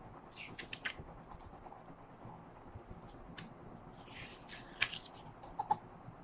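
Photobook pages being handled and turned: soft paper rustles with a few light clicks and taps.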